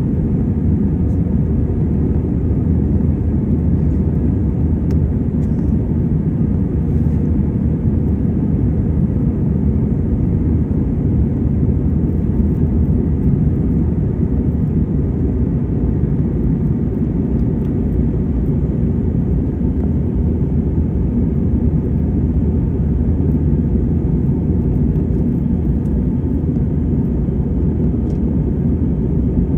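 Airbus A320 in its climb after takeoff, heard inside the cabin: a steady, loud low rumble of engines and airflow that holds even throughout.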